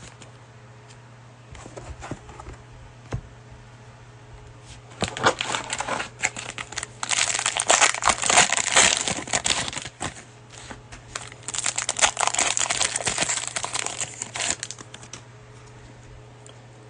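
Cellophane wrapper of a trading card pack being torn open and crinkled, in two long spells of dense crackling between about five and fifteen seconds in.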